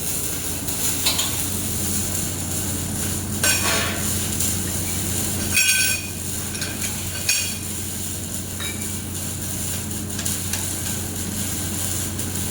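Steady machine hum from the air-cooled handheld laser welder, with several sharp metallic clinks and taps from metal being handled; the loudest clink is about six seconds in.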